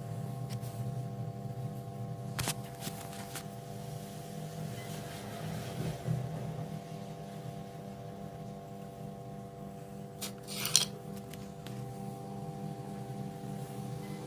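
A steady low hum runs throughout. Over it come a few light knocks and, about ten seconds in, a short scrape as a wooden stir stick works in a cut-down plastic bottle of black-tinted epoxy resin.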